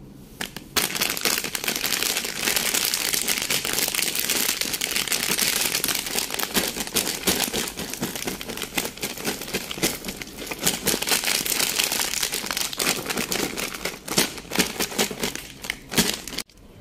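Plastic candy bag and cellophane-wrapped lollipops crinkling and rustling continuously as a hand rummages through them, starting about a second in.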